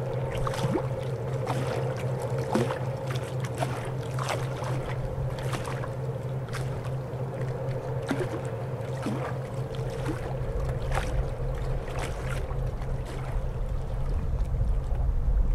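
Boat's diesel engine running with a steady low drone, scattered with short sharp clicks. A low wind rumble on the microphone builds near the end.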